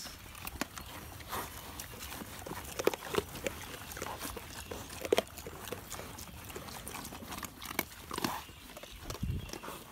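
Pigs crunching and chewing butternut shells and nut fragments from a dish: irregular sharp cracks as the hard shells break in their jaws.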